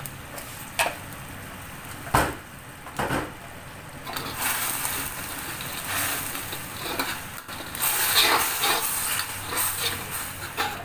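Metal spatula scraping and clinking against a stainless steel wok as a milk sauce is stirred: a few sharp knocks in the first three seconds, then steadier, denser scraping from about four seconds in.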